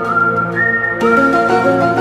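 Music with a whistle-like lead melody held over sustained chords, the melody stepping up and down between long notes.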